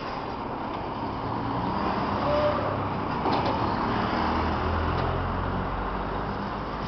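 Street traffic noise with a motor vehicle engine running close by, its low hum swelling through the middle. A couple of faint knocks stand out.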